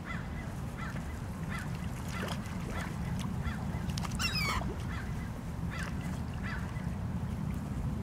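Gulls calling repeatedly in short squawks, with one louder, longer call about four seconds in, over a steady low rumble.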